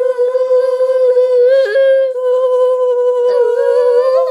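A child's voice holding one long, almost level note, wavering briefly about a second and a half in and again near the end.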